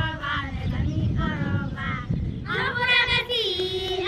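A group of children singing in high voices, in short phrases with some held, bending notes, growing louder about two and a half seconds in, over a low rumble.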